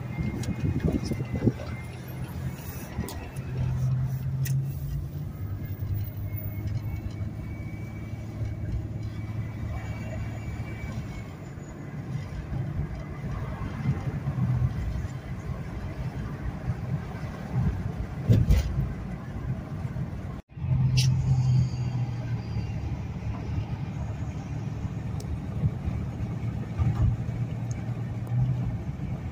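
Car cabin interior while driving: steady engine and road rumble, with a brief cut-out of all sound about two-thirds of the way through.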